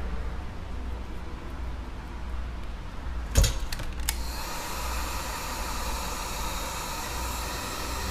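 A sharp click about three and a half seconds in, then a hot-air heat gun starts blowing with a steady rushing hiss, heating the glass to soften the adhesive holding the iPad Air's digitizer.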